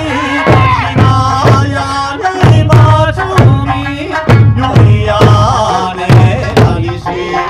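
Eisa drumming: large barrel drums (ōdaiko) struck with sticks in a steady beat, about two hits a second, over an Okinawan eisa folk song with singing.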